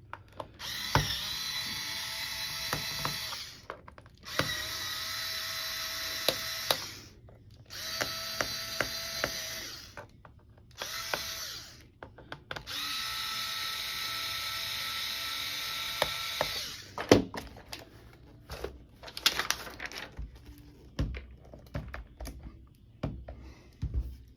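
Power screwdriver backing out the bottom-cover screws of a Lenovo IdeaPad 3 laptop, its motor whining steadily in about five runs of one to three seconds each. In the last several seconds the whine gives way to scattered clicks and knocks of screws and the plastic case being handled.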